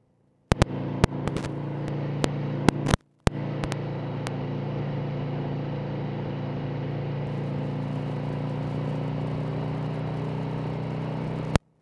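Harley-Davidson Sportster's V-twin engine running steadily at highway cruising speed, with wind and road noise. The sound cuts in and out abruptly, with sharp crackles over the first few seconds and a brief dropout about three seconds in, the sign of a failing microphone.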